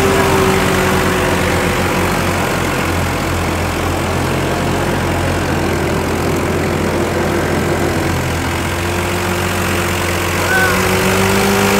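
Türk Fiat 55-46 tractor's diesel engine running steadily while the tractor pulls through deep mud. Its pitch sags slightly in the middle and picks up again near the end.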